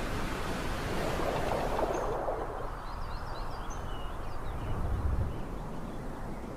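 Rushing, surf-like noise with no clear pitch, swelling about a second or two in, with a short deep thud near five seconds and a few faint high chirps in between.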